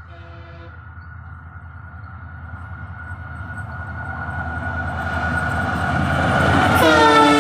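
Diesel locomotive and its train approaching, the engine and wheel rumble growing steadily louder. About seven seconds in, the locomotive's multi-tone horn sounds loudly, its pitch sliding down as it starts.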